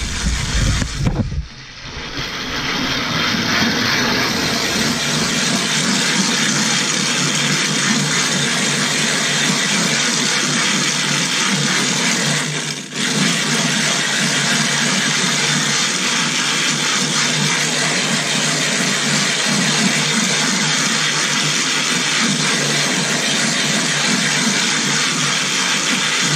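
Silicon carbide sharpening stone being lapped flat on a glass plate with abrasive slurry: a steady, gritty grinding rasp as the stone is rubbed back and forth and around. It breaks off briefly about a second and a half in and again near halfway.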